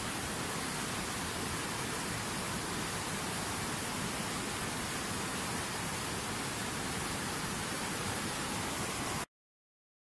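Steady, even rushing hiss, unchanging in level, that stops abruptly about nine seconds in.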